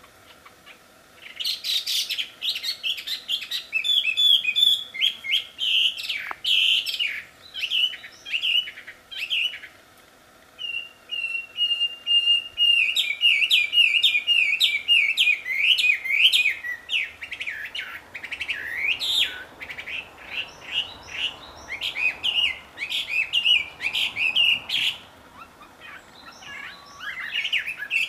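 Chinese hwamei (wambi) singing a loud, varied song of rapid whistled notes that glide up and down in pitch. It starts about a second in, breaks off briefly around the middle, and pauses again near the end before resuming.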